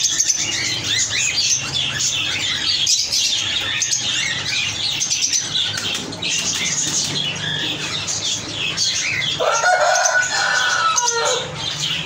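Caged lovebirds chattering with rapid, high chirps, and a lower, harsher squawking call about ten seconds in.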